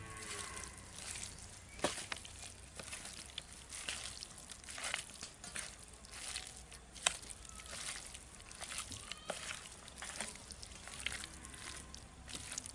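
A hand mixing and squeezing raw chicken pieces coated in wet crushed garlic, ginger, green chilli, turmeric and salt on a steel plate: irregular wet squelches and clicks, with a couple of sharper clicks against the plate.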